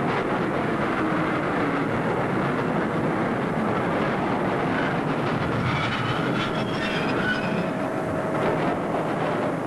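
New York City subway train pulling into a station: a loud, steady rumble of wheels on track, with thin high wheel squeals coming in past the middle.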